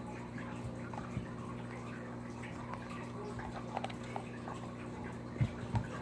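Steady low hum with a few soft taps and knocks, the clearest a little after five seconds in.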